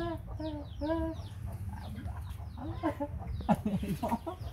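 Chickens clucking in short repeated calls about twice a second, with high falling chirps over them. About three and a half seconds in there is a scuffle and thump as the monkey leaps off across the bed.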